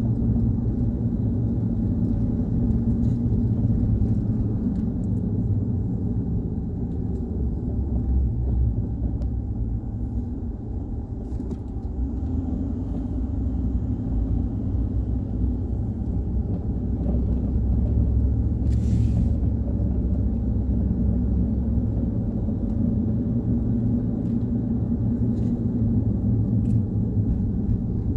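Steady low road and engine rumble inside a moving car's cabin, with a short hiss about two-thirds of the way through.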